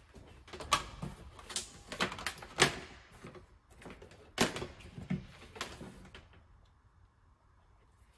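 Electrical wires and small harness parts being handled on a metal workbench: about eight sharp taps and clicks in the first six seconds, then only faint handling noise.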